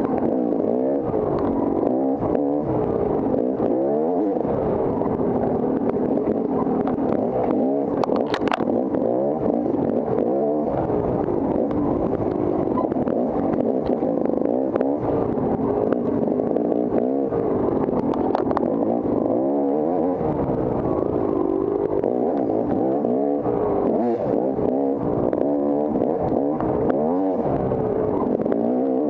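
Off-road dirt bike engine being ridden hard, its revs rising and falling over and over as the throttle is worked, with a couple of brief sharp clicks.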